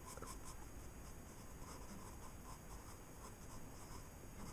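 Graphite pencil sketching on paper, a faint run of short, quick scratching strokes.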